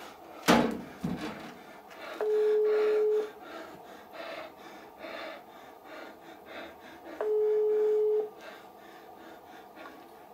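Telephone ringback tone heard from a mobile phone held to the ear: a steady single-pitch beep about a second long, sounding twice about five seconds apart, the sign that the called phone is ringing without being answered. A single sharp knock about half a second in.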